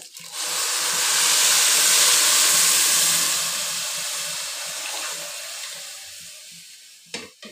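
Water poured in a stream into a hot aluminium pot of fried rice and peas, splashing as it fills. It starts just after the beginning, is loudest about two seconds in, and slowly tapers off as the pour ends. This is the pulao's cooking water, about 1.5 litres for a kilo of rice.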